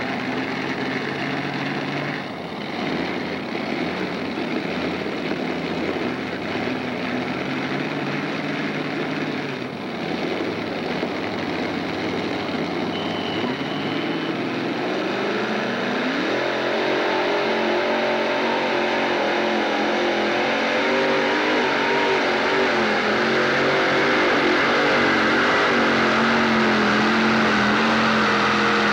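Multi-engine modified pulling tractor running at the starting line, then revving up in a smooth rising note about halfway through and holding steady at high revs, a little louder toward the end.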